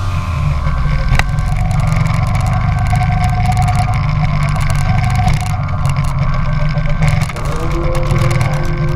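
Go-kart engine running as the kart drives the track, heard from on board over a steady low rumble. The engine pitch rises a little over seven seconds in as it speeds up.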